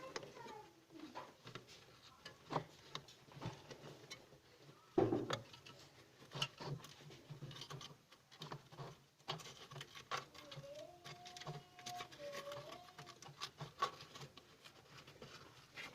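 Irregular light clicks and taps of hands handling parts, with one louder knock about five seconds in. A faint wavering tone comes and goes in the second half.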